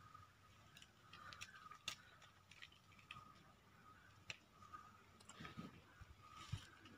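Near silence broken by faint scattered clicks and ticks from a plastic water bottle being opened and handled while a boy drinks from it, over a faint steady high tone.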